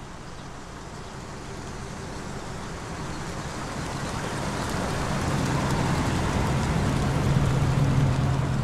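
A vintage car driving up and passing close by: its engine hum and the hiss of its tyres on the road grow steadily louder, peaking near the end.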